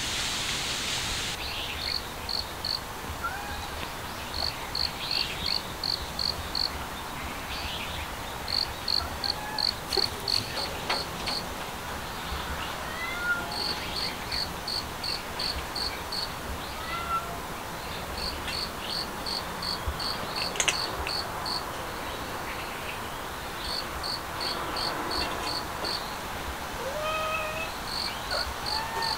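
Insects chirping outdoors in steady runs of short, high pulses, about three a second, repeating over and over, with scattered short chirps between. A steady hiss cuts off about a second in, and a cat gives a short mew near the end.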